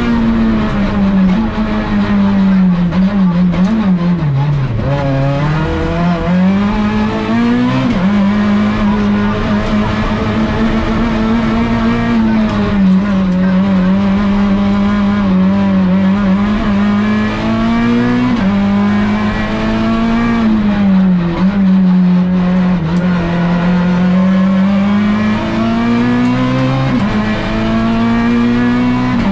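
Citroën C2 R2 Max rally car's four-cylinder engine, heard from inside the cabin at full stage pace. The engine note climbs and falls with the revs and gear changes, dropping deep about four to five seconds in and climbing again, with sudden drops at later shifts.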